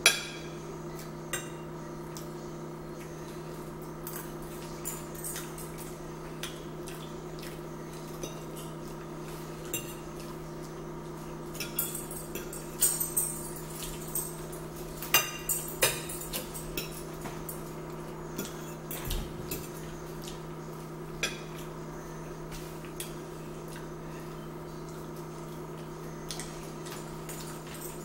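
Metal forks clinking and scraping against dinner plates as two people eat, scattered sharp clicks with a busier run near the middle, over a steady background hum.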